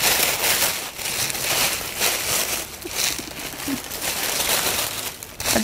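Tissue paper rustling and crinkling without a break as it is unfolded by hand to unwrap a crocheted garment.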